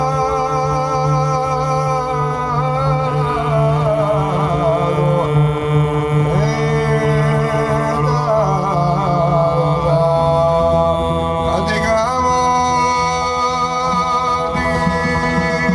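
Live Georgian folk singing: several voices over a sustained low drone, with a melody moving above it. The drone note changes about ten seconds in.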